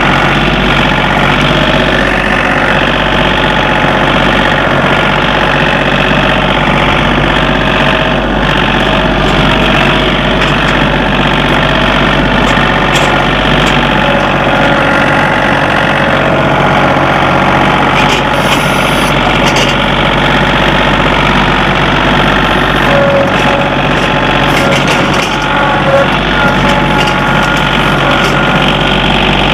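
Compact tractor's engine running steadily as it drives through brush, heard close up from the operator's seat.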